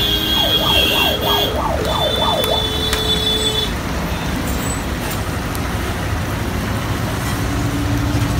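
Busy street traffic, with a vehicle's electronic horn warbling rapidly up and down in pitch for about the first second and a half. Around two seconds in comes a steady high beep-like tone lasting about a second and a half.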